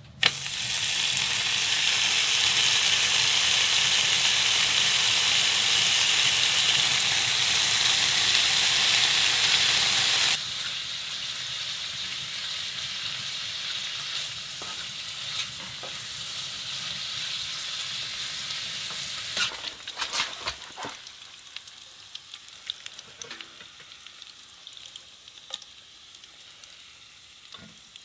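Food sizzling in a frying pan, loud and steady for about ten seconds, then suddenly dropping to a quieter sizzle. Scattered clicks come in the last third.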